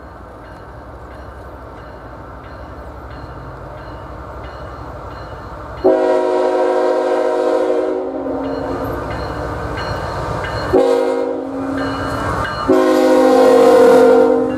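Diesel freight locomotive approaching with a low rumble that grows louder, then sounding its air horn: a long blast starting about six seconds in, a short one about five seconds later, and a loud long blast near the end as the locomotive passes close.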